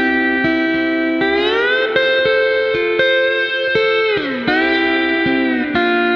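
Slide guitar music in the Hawaiian steel-guitar style: sustained chords that glide up and down in pitch together, each new chord lightly plucked.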